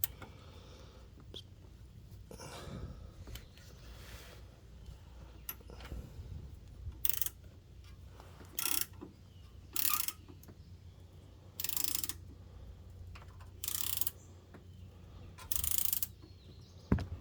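Hand ratchet clicking in short bursts, one about every two seconds in the second half, as bolts on the power steering cooler bracket are worked loose.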